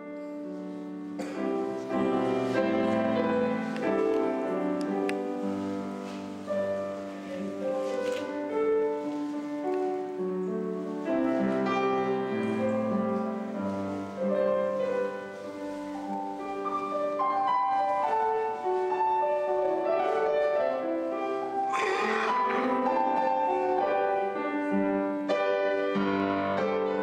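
Piano music playing.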